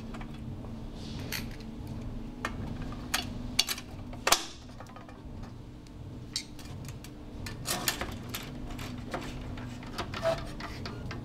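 Sharp clicks and light knocks of aluminium gutter and downpipe parts being handled and fitted together, the loudest about four seconds in, with a cluster near eight seconds. A steady low hum runs underneath.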